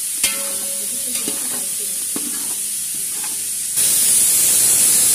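Sliced onions sizzling as they fry in hot oil in a large aluminium pot, stirred with a metal spoon that clinks against the pot a few times. About three and a half seconds in, the sound changes suddenly to a louder, steady hiss.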